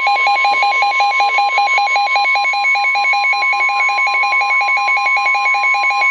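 Weather-alert radio alarm: a rapid trilling beep of about eight pulses a second, sounding together with the steady 1050 Hz NOAA Weather Radio warning alarm tone that comes on at the start. The tone signals that a new warning is about to be broadcast.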